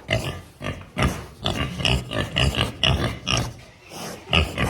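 Several large pigs grunting and squealing in a quick run of short calls, several a second.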